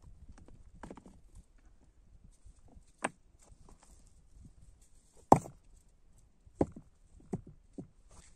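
Stones knocking together as rocks are lifted and set down by hand: a handful of separate sharp clacks, the loudest about five seconds in, with light scuffing between.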